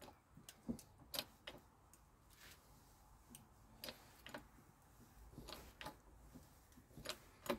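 Faint, irregular clicks and taps of small tools and parts being handled, about nine in all, the loudest near the end.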